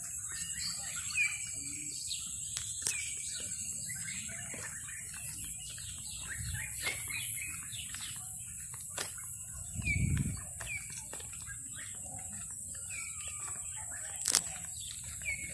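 Small birds chirping with many short, repeated falling calls over a steady high-pitched hiss and a low rumble that swells briefly about ten seconds in.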